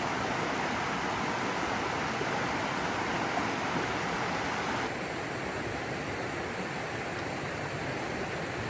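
Steady rush of falling water from a waterfall. It drops a little and changes tone abruptly about five seconds in.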